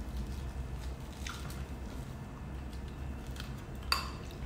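People chewing food close to the microphone over a steady low hum, with a short clink of a metal spoon against a ceramic soup bowl about four seconds in.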